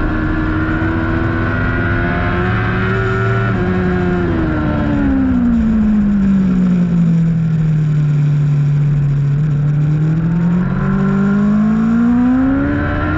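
A racing motorcycle's engine heard from onboard. Its pitch holds high for a few seconds, then falls smoothly as the bike slows, stays low for a few seconds, and climbs again as it accelerates.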